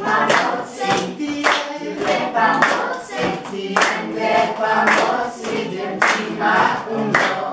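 A group of children and adults singing together in unison, clapping their hands in time about once a second.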